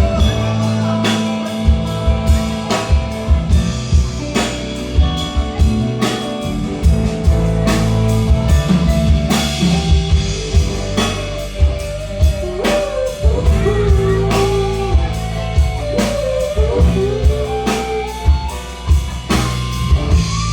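Instrumental break of a pop-rock song: a lead guitar melody with bending notes over a steady drum beat and bass, with no singing.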